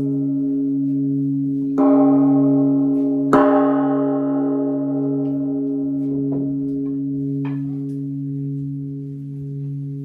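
Large bronze temple bell struck twice with a wooden mallet, about a second and a half apart. Each strike rings out over a deep, steady hum with a slow pulsing beat that fades gradually.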